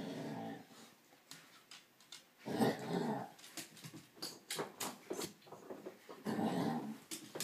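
Basset hounds making strange growling noises at each other while play-wrestling: three drawn-out growls, at the start, about two and a half seconds in and about six seconds in, with a run of short sharp sounds between them.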